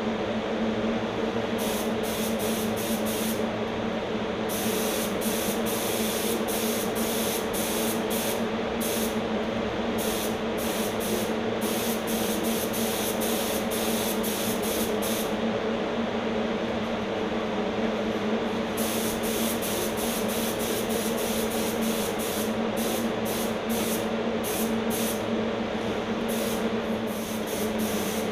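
HVLP spray gun spraying paint in many short hissing bursts as the trigger is pulled and released, with a break of a few seconds past the middle, over the steady hum of an air compressor running.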